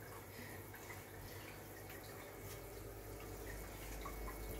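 Faint trickling and dripping of water in running aquarium filters, with small plinks over a steady low hum.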